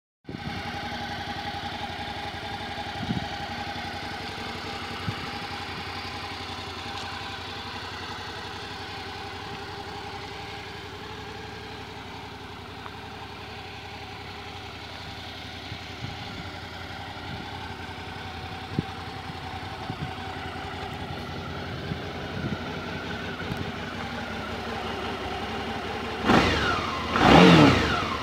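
Suzuki DL650 V-Strom's 645 cc V-twin idling steadily in neutral. Near the end the throttle is blipped twice, the engine note rising and falling each time, the second rev louder, before it settles back to idle.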